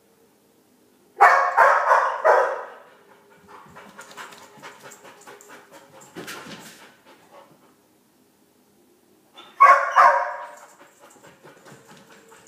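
A dog alone in the house, distressed by separation anxiety: a run of loud barks about a second in and another burst near the end, with quieter panting and faint ticks in between.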